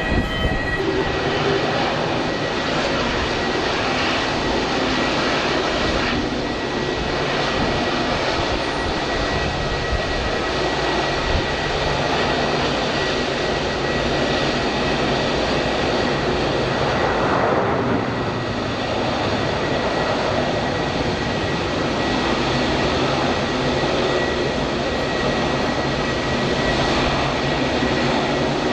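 Jet airliner engines running: a steady rushing noise with a constant high whine, swelling briefly about seventeen seconds in.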